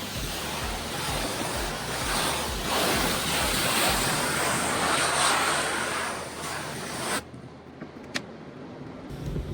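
Water spray from a pressure-washing rig, a steady rushing hiss that cuts off suddenly about seven seconds in. A single sharp click follows about a second later.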